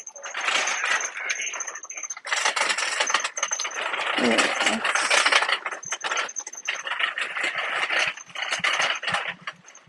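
Metal shopping cart rattling as it is pushed over a tiled floor, its wire basket and wheels clattering with many quick clicks.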